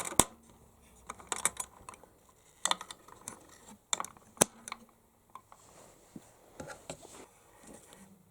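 Hands handling parts inside an open desktop PC case during a CPU swap: scattered sharp plastic-and-metal clicks and taps, the loudest about four and a half seconds in, then softer handling noise near the end.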